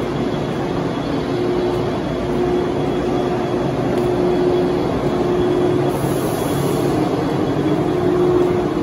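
Steady hum and rumble of a 413 series electric train standing at the platform with its doors open, its idling onboard machinery giving a humming tone that comes and goes.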